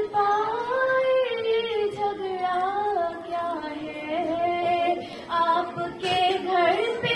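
A girl singing a devotional Urdu song solo into a microphone, holding long, wavering notes that glide up and down between short breaths.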